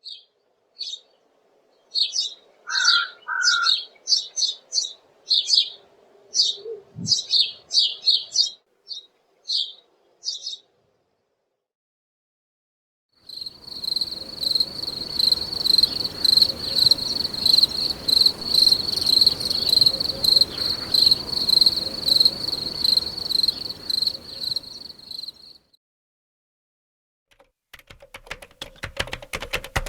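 Songbirds chirping in short, quick high calls for about ten seconds. After a pause comes a steady, high-pitched pulsing buzz lasting about twelve seconds. Near the end, rapid computer keyboard typing starts.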